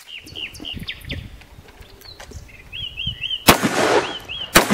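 Two shots from an Allen & Thurber .32 calibre percussion pepperbox revolver, about a second apart in the second half, each trailing off in an echo. Birds chirp over and over throughout.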